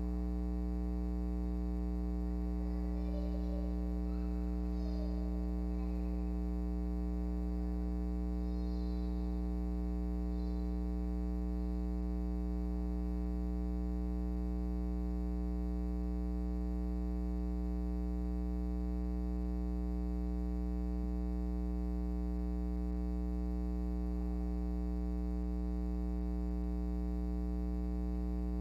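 Steady electrical mains hum, a constant low buzz with a ladder of overtones above it. A few faint, brief sounds come through it in the first ten seconds or so.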